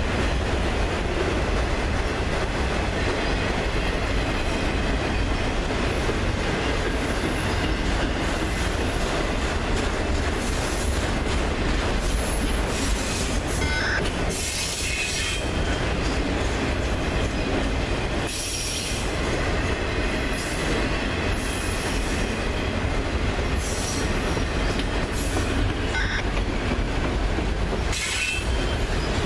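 Freight train's autorack cars rolling past close by: a steady rumble and clatter of steel wheels on the rails, with brief high wheel squeals now and then.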